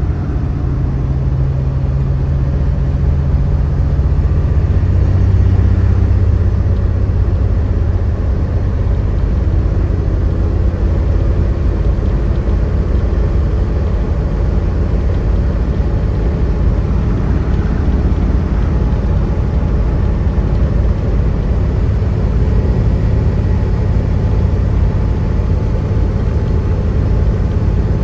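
Diesel engine of a small short-wheelbase truck pulling hard up a hill with a heavy load of about 25,000 pounds behind it: a steady low drone that swells a little about five seconds in.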